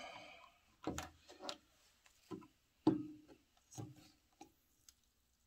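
A small plastic bottle, its screw cap and a plastic syringe being handled on a wooden table: a series of about seven sharp plastic clicks and knocks, loudest a little before the middle.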